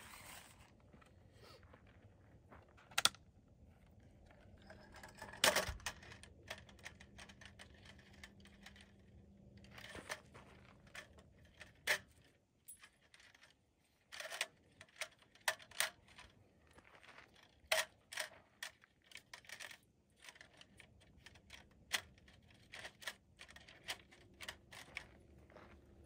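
Irregular clicks, clinks and knocks of small hard objects being handled, a few with a short metallic ring, more frequent in the second half.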